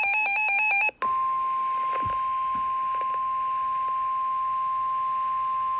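Emergency Alert System SAME header: a burst of rapidly warbling data tones that cuts off just under a second in. After a brief gap comes a steady, single-pitched alert tone, the 1050 Hz NOAA Weather Radio attention signal.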